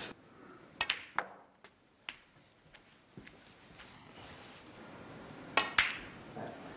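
Snooker balls clicking on a match table: a cue strike and ball-on-ball contacts give several short sharp clicks in the first two seconds, a few faint clicks after, and a louder ringing click about five and a half seconds in, over a quiet arena hush.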